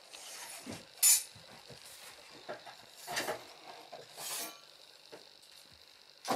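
A cat moving about on top of kitchen cabinets while chasing a fly: a sharp clink about a second in, scattered soft knocks and rustles, and a thump near the end as it leaps across.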